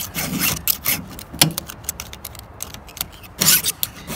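Flat file rasping in repeated, uneven strokes over a depth-gauge tool on a chainsaw chain, filing down raker gauges that sit too high. A louder stroke comes about three and a half seconds in.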